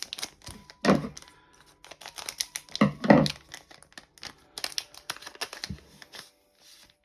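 Trading cards being handled by hand, with crinkling rustles and quick clicks as cards slide over one another, and two louder rustles about one and three seconds in.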